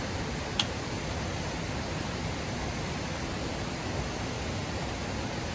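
Steady, even rushing-water hiss. A single sharp click about half a second in.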